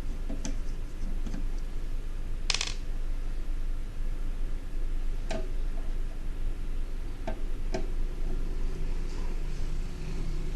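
Small clicks and taps of a screwdriver and screws being worked out of a hot air rework station's metal casing, with one louder short clatter about two and a half seconds in, over a steady low hum.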